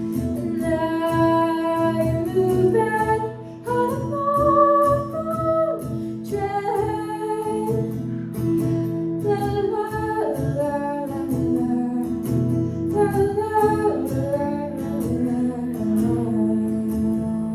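A woman singing a slow melody over a plucked acoustic guitar.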